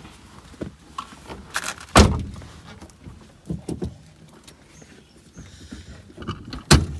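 Car door thudding shut about two seconds in, then a few small clicks and a second sharp thunk near the end.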